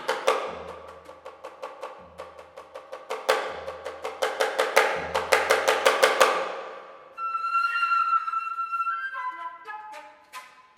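Flute and janggu (Korean hourglass drum) playing instrumental music. For about the first seven seconds the janggu beats a fast, dense pattern of sharp strokes that gets louder and quicker, then the flute holds a high note and plays a falling run of notes near the end.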